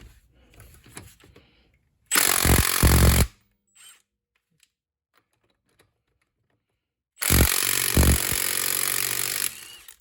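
Cordless impact wrench on its third power mode hammering on an impact socket in two bursts: a short one of about a second a couple of seconds in, then a longer one of about two seconds later on.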